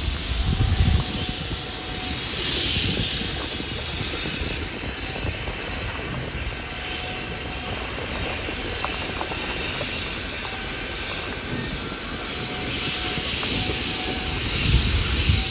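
Steam locomotive 1309, a 2-6-6-2 Mallet, moving slowly with a steady low rumble. Bursts of steam hiss come at the start, again about three seconds in, and once more near the end.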